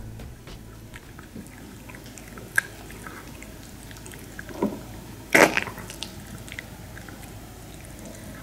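Maltese dog chewing a dried pig-ear slice: scattered crunches and clicks of the chew breaking between its teeth, the loudest crunch about five seconds in.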